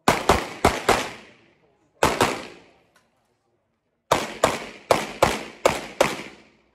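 Handgun shots fired in quick strings during a practical shooting stage: four shots, then two more about a second later, then a string of six. Each shot trails off in a short echo.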